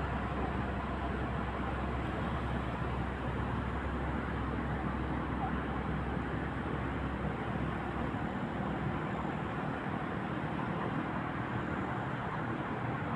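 Steady outdoor background noise, with a low rumble that drops away about eight seconds in.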